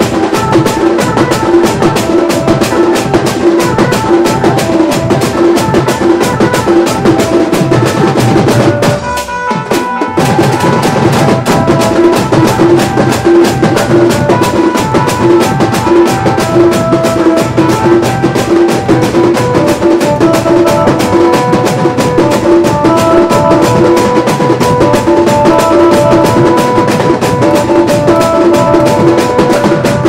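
Band music led by loud drums keeping a steady, even beat, with a repeating melody line above it. The music dips briefly about nine seconds in, then carries on.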